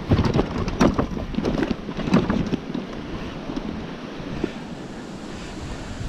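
Loaded touring bicycle jolting over a rough dirt track: a quick run of knocks and rattles from the bike and its handlebar bag for the first couple of seconds, over steady wind noise on the microphone that carries on alone after that.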